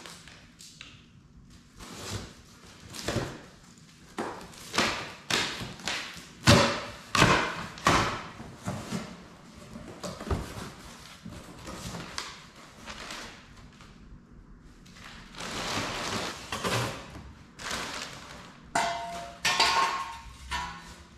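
A cardboard parts box being torn open, with cardboard scraping and flaps knocking in a run of short bursts. Near the end a steel body part knocks and rings as it is lifted out.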